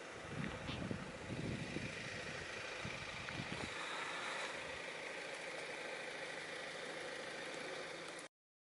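Outdoor background noise: low, gusty rumbling for the first few seconds, then a steadier even hiss. It cuts off abruptly to silence near the end.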